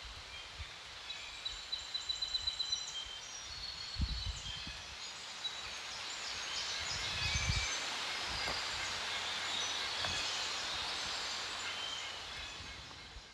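Small birds chirping in a redwood forest, with a rapid trill of repeated notes about a second in, over a soft steady hiss. A few low thumps of wind or handling on the microphone.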